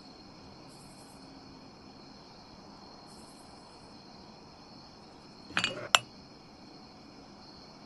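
A drinking glass is lifted off a table: a light knock, then a sharp glass clink about six seconds in. Before it come a few soft rustles against a faint steady high hiss.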